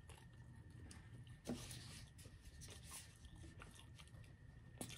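Near silence: room tone with a faint low hum and a few faint soft clicks, the clearest about a second and a half in and another just before the end.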